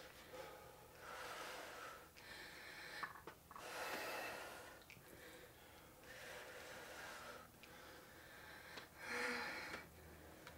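Faint, slow breaths of exertion from a person lifting dumbbells, a series of airy inhales and exhales a second or two apart.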